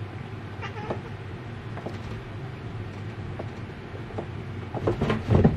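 Cardboard boxes knocking and rustling as a cat climbs out of an upper box and steps down the stack, with a few faint taps early on and louder thumps near the end, over a low steady background hum.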